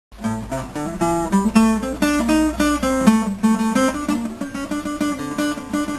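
Acoustic guitar played fingerstyle: a quick run of separately picked melody notes over lower bass notes.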